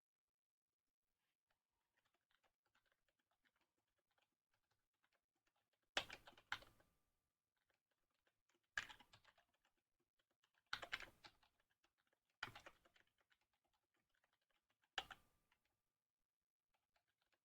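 Computer keyboard typing in short, scattered bursts of a few keystrokes with quiet gaps between them. Nothing is heard for about the first six seconds.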